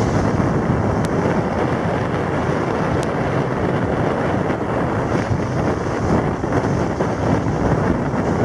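Wind buffeting the microphone: loud, steady, gusting wind noise, heaviest in the low rumble.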